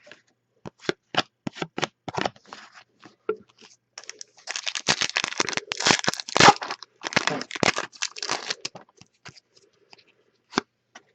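Trading-card pack wrapper and cards being handled: a string of sharp clicks and snaps, then a few seconds of tearing and crinkling of the wrapper, and a few more clicks near the end.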